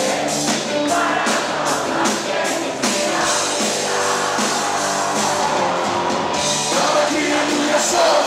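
Live band playing a pop-rock worship song, the drums keeping a steady beat under a singing voice.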